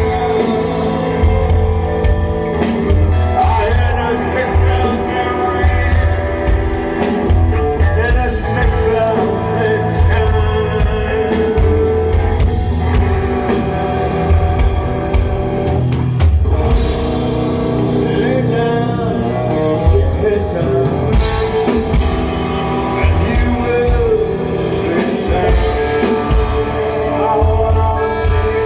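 Live rock band playing on a concert recording, with drums, bass, electric guitar and singing.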